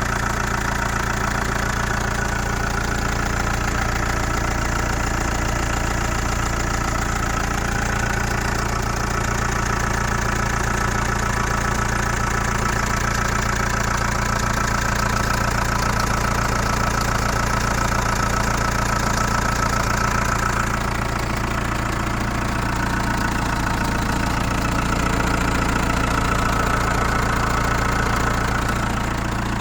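Chrysler Voyager 2.8 CRD four-cylinder diesel idling after a cold start, having stood for a couple of months, with a higher-pitched whine over the idle that drops out about two-thirds of the way through and comes back. This is the strange noise the owner cannot identify.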